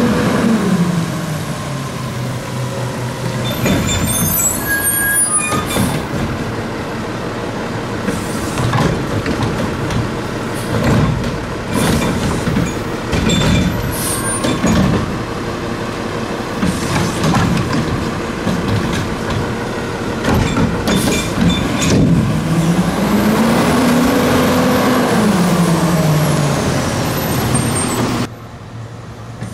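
Front-loading garbage truck working: its engine revs down, later revs up and falls back again. Repeated metallic clanks and bangs run through it. The truck's sound drops away abruptly near the end.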